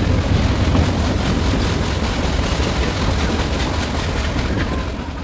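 Nilgiri Mountain Railway toy train running: a steady rumble of the coaches and wheels on the track.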